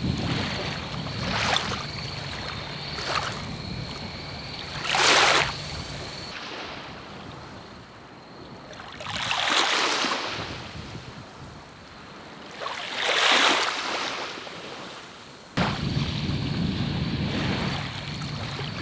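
Small waves washing onto the shore, surging and falling back every few seconds. A faint steady high tone is in the background, which changes abruptly about six seconds in and again near the end.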